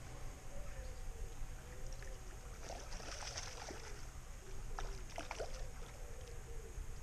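Hooked rainbow trout splashing at the surface of the lake as it is played in to the landing net, with splashes about three seconds and five seconds in. A steady low rumble of breeze on the microphone runs underneath.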